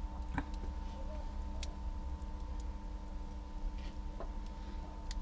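Hot charcoal under skewered chicken lyulya kebab ticking and popping now and then, a few scattered sharp clicks, over a steady low hum.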